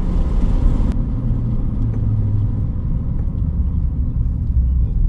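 A GMC Sierra pickup truck driving, heard as a steady low rumble of engine and road noise. The hiss drops off about a second in.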